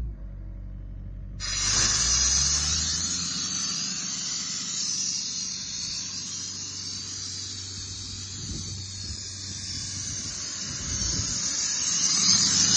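Towable air compressor running, its engine humming steadily underneath while compressed air hisses out of an opened outlet valve. The blast is off for the first second or so, then comes on about a second and a half in and rushes steadily.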